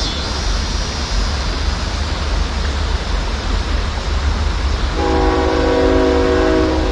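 Train horn sounding a long, steady multi-tone blast that starts about five seconds in, over a constant low rumble.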